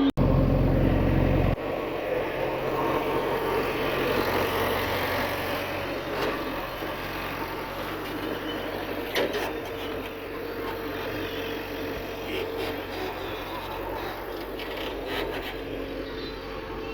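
Diesel machinery working: a backhoe loader and tractor engines running steadily, with a few sharp knocks. A loud low rumble fills the first second and a half.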